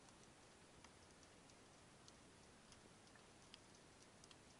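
Faint underwater ambience picked up by a submerged camera: a steady hiss with scattered sharp clicks, a few a second at irregular intervals.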